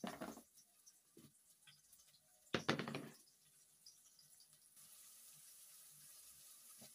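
Two brief bursts of handling noise as a kitchen knife and a plate are moved about on a plastic tabletop, the louder about two and a half seconds in, with small clicks between. A faint steady hiss sets in near the end.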